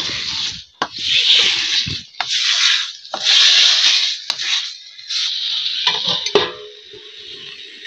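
Steel spoon scraping and stirring curry around a steel kadai, about five strokes of under a second each, then a quieter steady hiss for the last second and a half.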